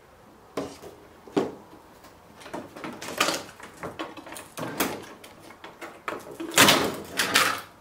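Thin display panel and plastic backlight parts of a flat-screen TV being lifted and handled. There are two sharp knocks in the first second and a half, then scraping and rustling, and the loudest rattling clatter comes near the end.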